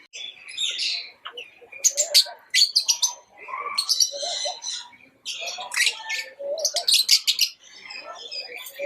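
Lovebirds chirping and chattering in quick, overlapping bursts of high chirps and rapid trills.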